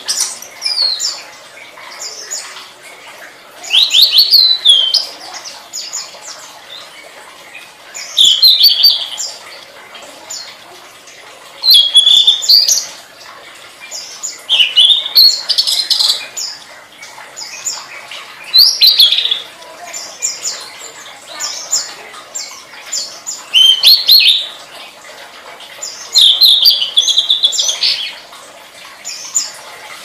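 Tledekan songbird singing: short, high phrases of quick rising and falling whistled notes, each about a second long, repeated every three to four seconds.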